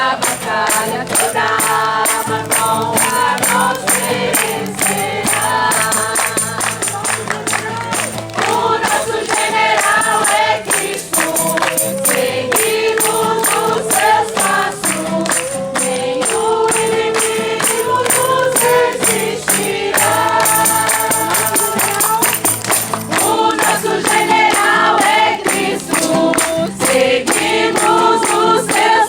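A group of voices singing a Christian praise song together to a steady, rhythmic beat.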